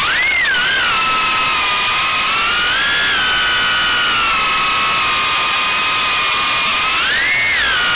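Brushless motors and ducted propellers of a 3-inch Armattan Gecko quadcopter whining over a heavy rush of prop wash and wind, heard from the camera on board. The whine climbs sharply in pitch with throttle punches right at the start and again about seven seconds in, with a smaller rise near three seconds.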